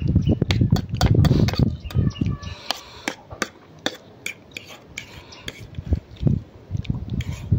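A metal fork clicking and scraping against a ceramic plate while twirling and scooping instant noodles, with close-up chewing and slurping of the noodles, loudest in the first couple of seconds and again near the end.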